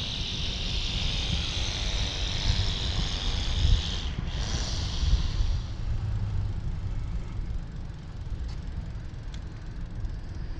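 Wind buffeting the microphone of a moving e-bike, a constant low rumble, over a steady road hiss that fades after about six seconds.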